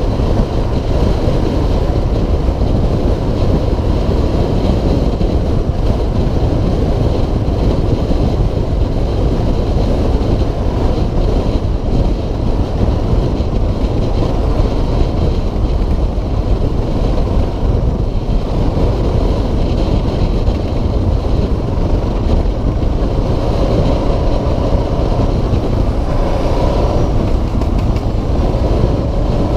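Suzuki DR650SE's single-cylinder four-stroke engine running steadily as the motorcycle cruises along the road, with a continuous low drone.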